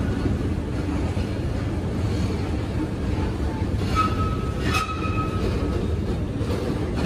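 Steady low rumble of a running escalator and the big terminal hall around it, with a brief high steady tone about four seconds in.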